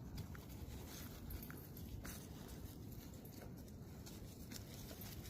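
Faint patter and scuffling of puppies' paws as the young dogs move about, with scattered light ticks.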